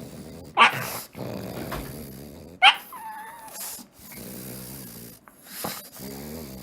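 Pug snoring in its sleep: low buzzing snores broken by short, sharp snorting breaths every two to three seconds, one of them followed by a brief whistling note.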